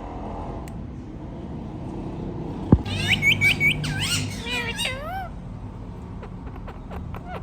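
Indian ringneck parakeet giving a quick burst of squawks and chirps, four short repeated notes and then wavering rising and falling calls, starting just after a sharp knock about three seconds in; a few fainter chirps follow.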